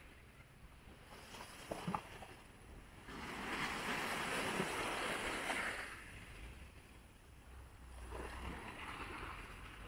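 Small waves breaking and washing up a sand and pebble beach, one long wash swelling and fading about three seconds in and another near the end. There are a couple of short sharp clicks just before two seconds in.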